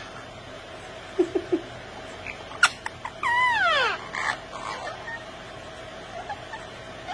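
Indian ringneck parakeets vocalizing while feeding: three short low notes, a sharp click, then one loud falling call lasting under a second, followed by a few softer chirps.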